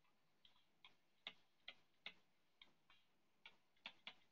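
Faint clicks of a stylus tapping on a tablet's glass screen while words are handwritten: about a dozen short ticks at uneven spacing.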